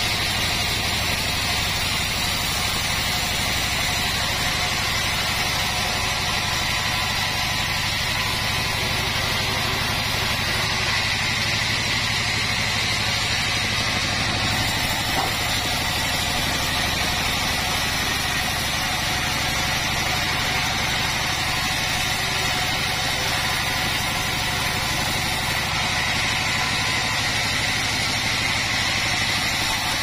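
Band sawmill running steadily, its blade ripping lengthwise through a teak log: a continuous, unchanging machine noise with a high whine over a low hum.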